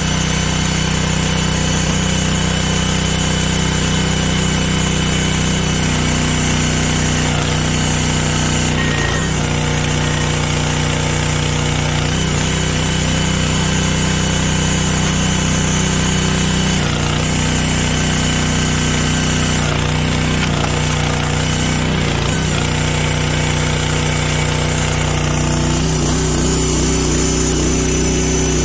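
Briggs & Stratton 6.5 HP petrol engine on an 18-ton hydraulic log splitter running steadily, its note shifting a few times as the ram works through logs.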